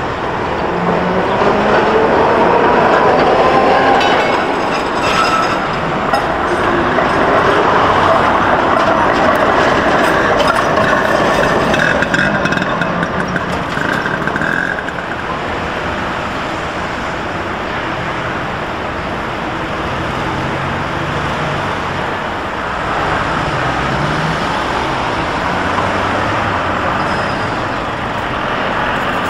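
An orange Peter Witt-style tramcar running on street track in traffic, with tones rising and sliding in pitch over the first half, and a high steady tone for a few seconds around the middle. Street traffic noise continues steadily through the second half.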